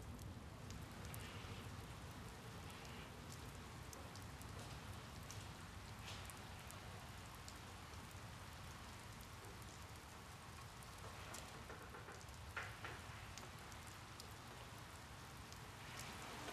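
Steady rain on window glass, a soft, even patter with scattered drop ticks and one slightly sharper tap about twelve seconds in.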